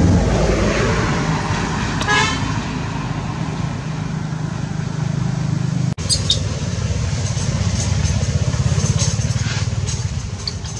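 A motor vehicle engine running with a steady low hum, with a short higher-pitched toot about two seconds in. The sound breaks off abruptly for a moment about six seconds in.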